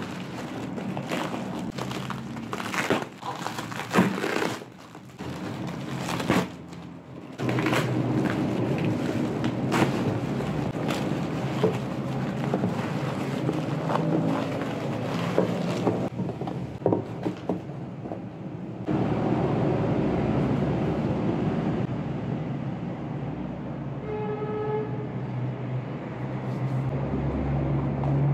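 Plastic bubble wrap crinkling and crackling as hands unwrap a package and handle a small cardboard box, over a steady low hum. A short pitched tone sounds near the end.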